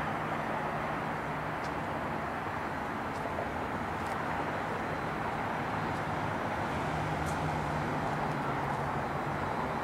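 Steady outdoor hum of distant road traffic, with a faint low drone under it and a few light ticks.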